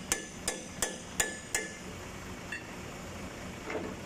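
Hammer striking steel at a boom truck's winch drum: five quick blows, about three a second, each with a short metallic ring, stopping about a second and a half in. One or two faint taps follow.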